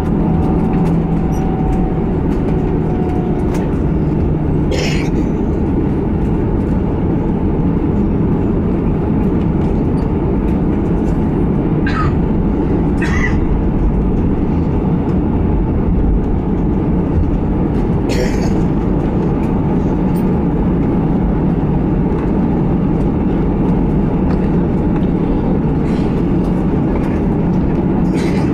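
Steady engine and rolling rumble heard inside the cabin of an Airbus A320 taxiing after landing. A few short, faint ticks break through the rumble here and there.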